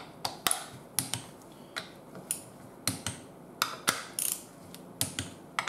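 Hand ratchet clicking in short, irregular strokes as bolts are run into the case halves of a zero-turn hydrostatic transmission.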